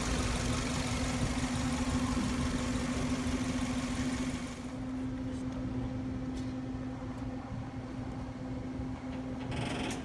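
Toyota engine idling with a misfire: one cylinder of a waste-spark coil pair is not firing, which is put down to a bad ignition coil. It runs with a steady hum and a high hiss that drops away about halfway through.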